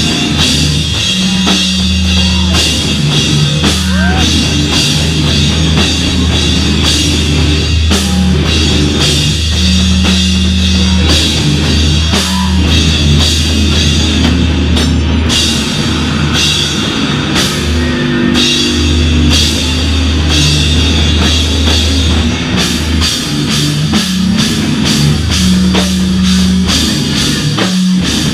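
A hardcore band playing live at full volume: heavy, low-pitched riffs held over dense drumming with cymbals.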